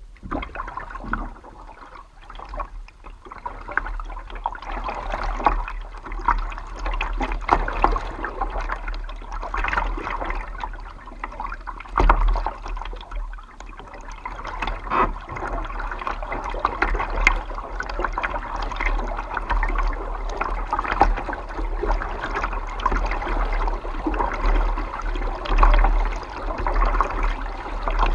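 Kayak paddling on calm water: paddle blades splash and drip at irregular intervals, and water washes and gurgles along the kayak's hull. A low steady rumble runs underneath.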